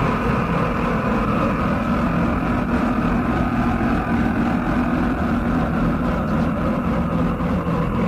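Improvised noise music: a dense, steady, muffled drone of noise with no breaks or sudden hits.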